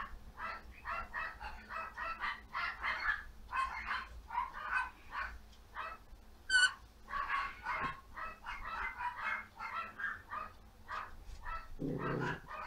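Yorkshire terrier making short, breathy rhythmic sounds, about three to four a second, with one brief high squeak about halfway through and a lower sound near the end.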